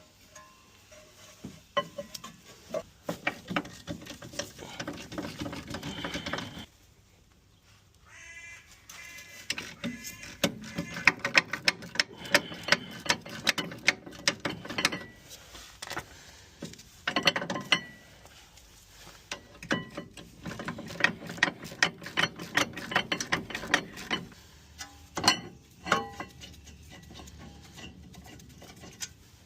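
Hand tools working on a car's rear brake caliper and pad carrier: long runs of fast ratchet clicking as bolts are undone, mixed with metal clinks and knocks, in several spells with short pauses between.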